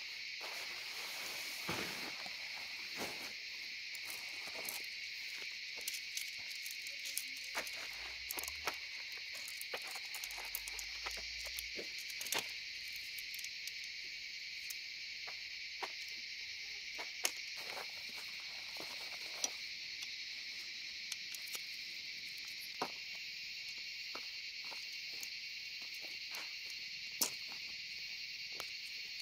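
Steady chorus of night insects, a continuous high-pitched buzzing, with scattered sharp clicks and knocks on top.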